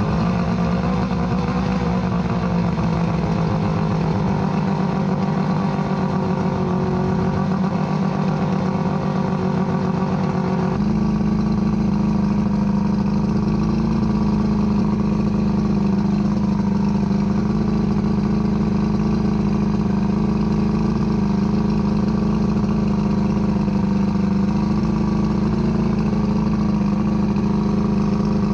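1978 Johnson 115 hp V4 two-stroke outboard engine running steadily out of the water, its sound growing fuller and slightly louder about ten seconds in. The engine has one cylinder not firing properly, which the owner later traces to a spark plug lead leaking spark.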